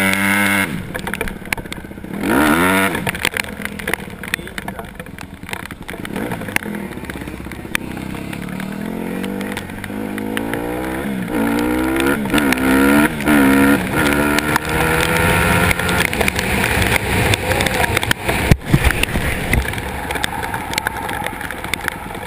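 Dirt bike engine, heard from the rider's helmet, revving up and down as it pulls away. It then accelerates through several gears, its pitch climbing and dropping back with each shift, before running at a steadier speed. A single sharp knock comes near the end.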